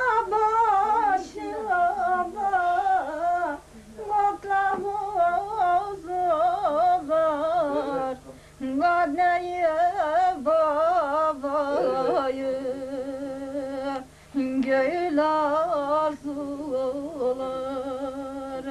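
A woman singing a türkü, a Turkish folk song, in a slow melody with wavering ornaments on the notes, in long phrases with short breaks about four, eight and fourteen seconds in.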